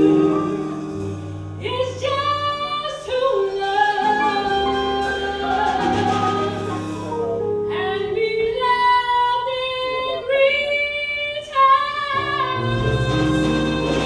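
Female jazz vocalist singing slow, held phrases with vibrato and sliding pitch over sustained keyboard chords. The voice comes in about two seconds in.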